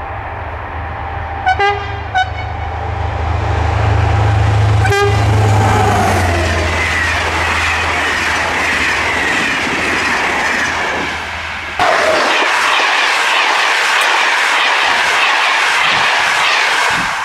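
SNCF CC 72100 diesel locomotive giving two short horn blasts and then a third as it approaches, then passing with a heavy low engine drone and a falling pitch, followed by its Corail coaches rushing past with wheel and rail clatter. About two-thirds of the way through it cuts to another close run of passing coaches.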